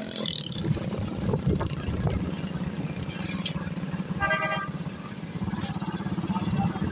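Motor vehicle engine running steadily while riding along a road, with a short vehicle horn toot about four seconds in.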